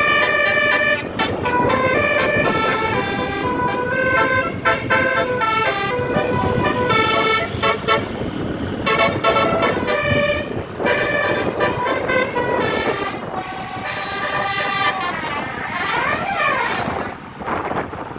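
Bus 'telolet basuri' musical air horn playing a melody, its notes stepping in pitch every fraction of a second, over a constant noisy background. Near the end a tone sweeps down and back up.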